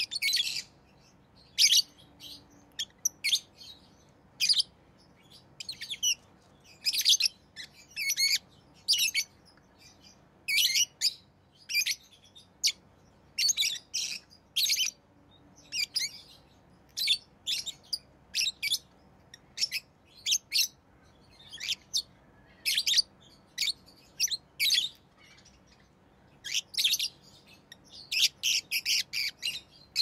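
Rosy-faced lovebirds chirping: short, sharp, high-pitched chirps in irregular clusters, with a quick run of them near the end.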